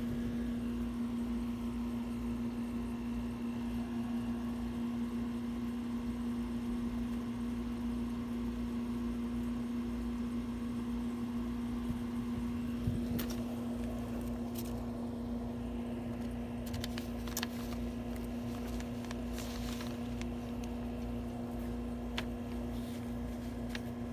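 A steady low electrical or motor hum, like a running appliance or fan. About halfway through and later there are a few light taps and clicks, likely the kittens climbing and landing.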